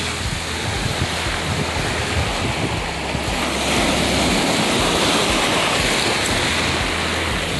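Small waves washing in over a pebble and gravel beach, the rush of water swelling about halfway through and easing off near the end, with wind rumbling on the microphone.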